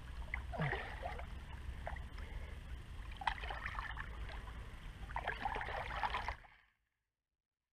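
Shallow water splashing and sloshing in short bursts around hands holding a large wels catfish, over a steady low rumble. The bursts come about a second in, around three seconds in and about five to six seconds in, and the sound cuts off suddenly about six and a half seconds in.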